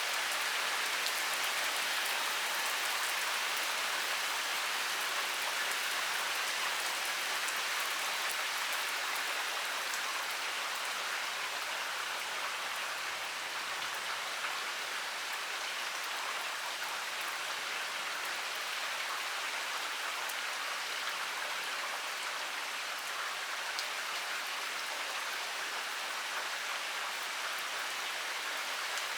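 Heavy rain pouring steadily, a dense even hiss of drops with the odd sharper drop tick.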